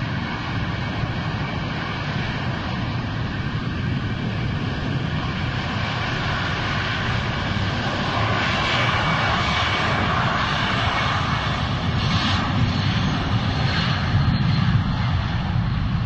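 Boeing 747-400's four turbofan engines at takeoff thrust during the takeoff roll: a steady jet noise that grows louder as the aircraft rolls closer. A thin high whine fades away over the first half.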